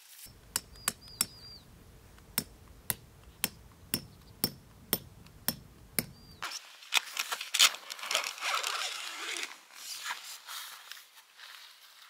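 Sharp, evenly spaced knocks, about two a second, lasting some six seconds, with a couple of short high chirps. The knocks stop suddenly, and rustling and clinking follow.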